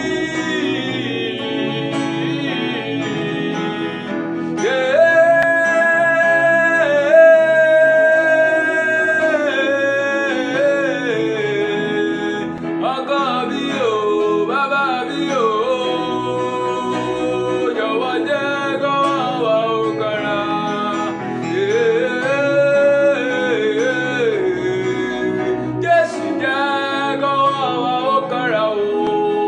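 Gospel music: a solo singer holding long notes that slide up and down, over a steady instrumental accompaniment.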